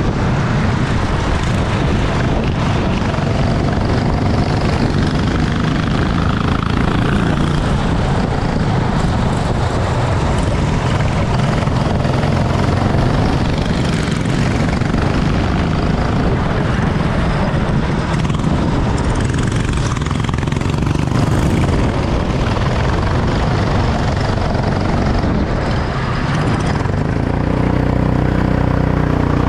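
Racing kart engine running hard, buried in heavy, steady wind and track noise. Near the end it settles into a steady, even engine note.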